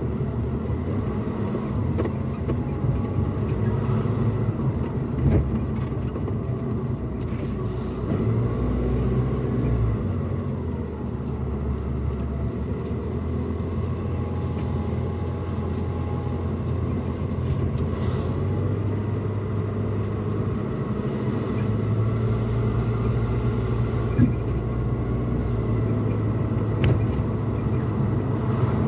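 Pickup truck cabin noise while driving: a steady low rumble of engine and tyres on the road. The engine's low hum shifts a little in pitch now and then, with a few faint clicks.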